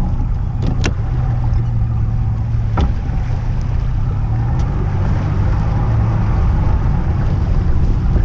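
Yamaha outboard motor on a bass boat running steadily at low speed, a loud low hum, with a few sharp clicks in the first three seconds.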